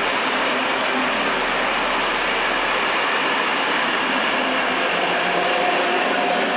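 Mat '54 electric trainset rolling past along the platform, a steady rumble of wheels and running gear. A faint high tone joins near the end.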